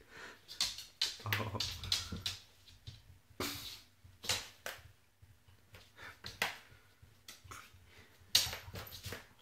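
A small dog in a clear plastic cone collar fumbling at a ball on a hard wood-effect floor: irregular clicks, knocks and scrapes from the cone, its claws and the ball, with one sharp knock near the end.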